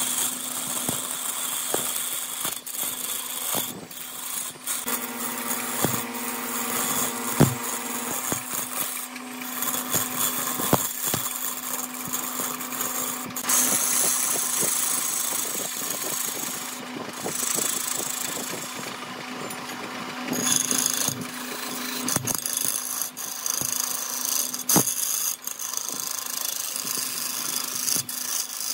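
Lathe running with a steady hum while a hand-held turning tool cuts a spinning epoxy-resin and bamboo-tuber blank: a scraping hiss of shavings that swells and eases as the tool bites, with scattered sharp ticks and knocks.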